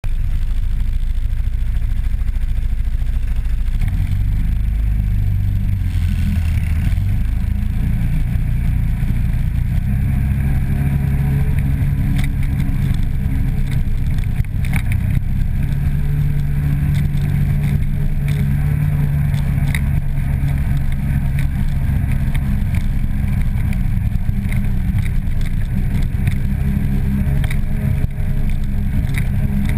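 ATV engine running under way on a rough gravel trail, a steady low drone that rises a little in pitch now and then as the throttle is opened. Scattered knocks and rattles from the machine jolting over bumps.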